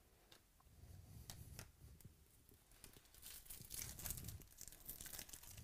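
A Topps Chrome foil card-pack wrapper is torn open and crinkled by hand. A few sharp crinkles come first, then a denser run of crackling tearing from about three seconds in.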